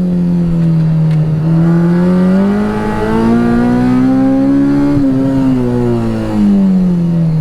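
K20 four-cylinder engine in a swapped Honda Integra Type R pulling hard on track, heard from inside the car: its pitch climbs steadily for about three seconds, then falls away near the end as the driver comes off the throttle.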